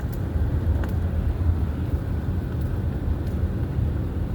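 Steady low rumble of a vehicle engine idling, with a few faint ticks.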